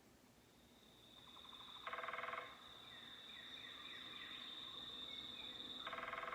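Woodpecker drumming on a tree: two rapid rolls of pecks, each about half a second long and about four seconds apart. A steady high-pitched buzz and faint bird chirps run underneath.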